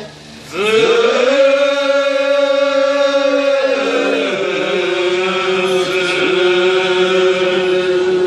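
Kiyari-uta, a traditional Japanese work chant, sung in long drawn-out notes. After a short breath at the start, the voice swoops up into a long held note, falls away, and then holds a second, lower note.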